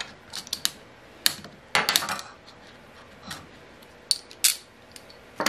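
Scattered light metal clicks and clinks of a screwdriver and a small screw being worked out of an Incra 1000HD miter gauge, with a longer rattle of handled metal parts a little under two seconds in.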